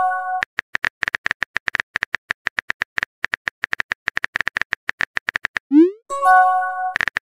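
Chat-app sound effects: a rapid, even run of typing clicks, then about six seconds in a quick rising swoop followed by a bright multi-note chime as a new message bubble pops up. The last of an identical chime rings at the very start.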